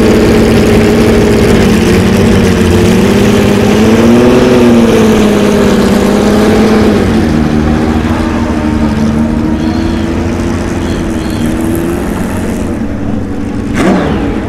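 Porsche 917K's flat-12 engine running loud at a fast idle. It revs up and back briefly about four seconds in, then settles lower as the car pulls away and fades with distance. There is a short sharp sound near the end.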